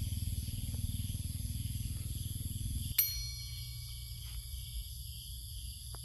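Outdoor background with a steady high-pitched insect drone. About halfway through comes a short, bright ding that rings on for a second or two.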